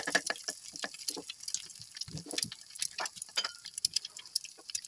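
Quail eggs frying in hot oil in a small pan: a steady sizzle with many quick crackles and pops.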